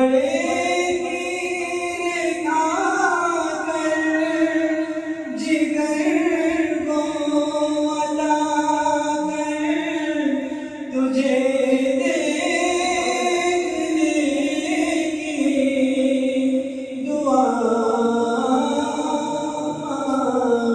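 A man singing a naat, an Urdu devotional song, in long held notes that glide from pitch to pitch.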